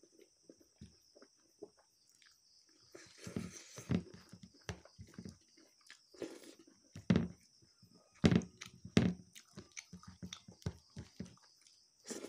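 Close-up chewing and biting: wet, smacking mouth sounds of food eaten by hand, a string of short smacks with a few louder ones about seven and eight to nine seconds in.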